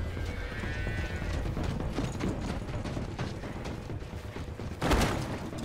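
Film soundtrack of a tense struggle: scattered clicks, knocks and clatter over a low steady rumble, with a loud sharp hit about five seconds in.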